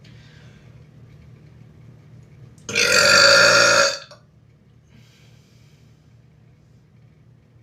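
A person's single loud burp, about a second long, held on one steady pitch, near the middle.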